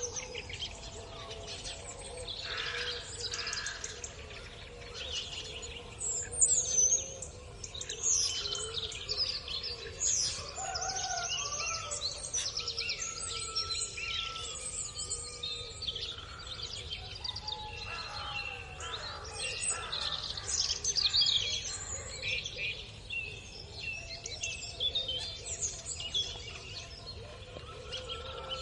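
Many birds chirping and calling over one another in a continuous busy chorus of short high chirps and trills.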